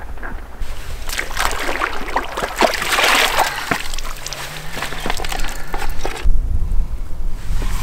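Lake water splashing and sloshing as a collapsible water bag is dipped in and filled at the shoreline, with a low rumble near the end.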